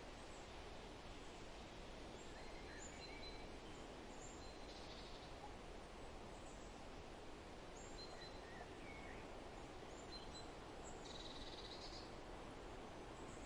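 Faint forest ambience: a steady hiss of background noise with scattered short bird chirps, and a brief buzzy trill about eleven seconds in.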